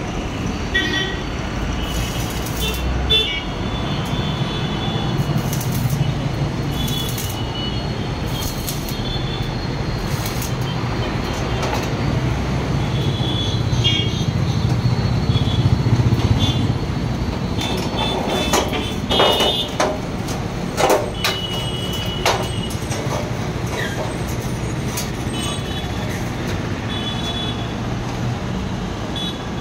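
Electric arc welding of a stainless-steel tube frame: short crackling tack welds, heard over a steady low hum and street traffic with occasional horn toots.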